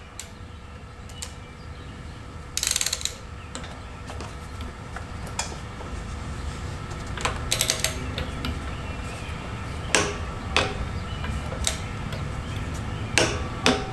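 Torque wrench ratcheting as the generator's oil drain plug is tightened to torque, with scattered sharp clicks of the tool on metal and a short rustle about three seconds in.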